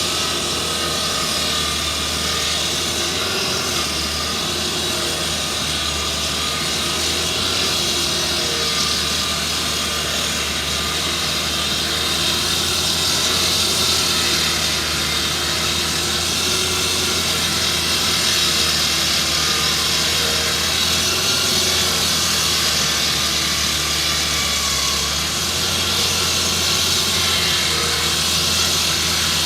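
Walk-behind pavement saw cutting asphalt: its engine runs steadily under a strong, high-pitched noise from the blade in the pavement.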